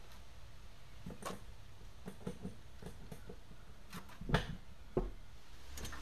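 Light clicks and metal clinks of an adjustable wrench and hose fittings being handled while hydraulic hoses are fitted to a top link cylinder, with two louder knocks about four and five seconds in.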